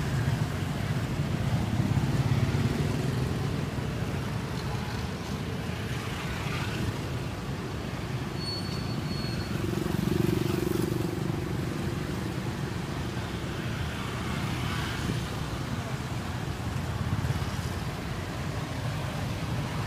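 Steady street traffic noise: a low, continuous rumble of passing road vehicles.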